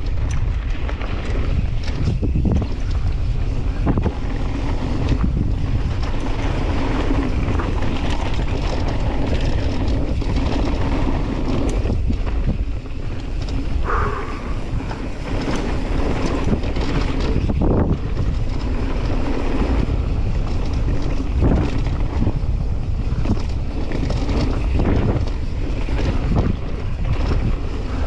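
Wind buffeting a helmet-mounted camera on a downhill mountain bike descent, over the rumble of the tyres on a dirt trail and frequent rattles and knocks from the bike on rough ground. A short high squeal comes about halfway through.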